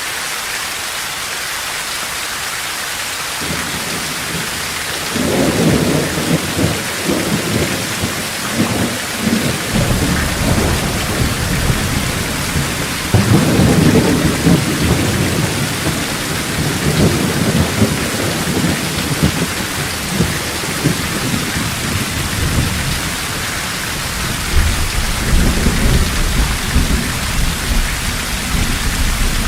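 Steady heavy rain with thunder rumbling in long rolls, starting a few seconds in and swelling again around the middle and near the end.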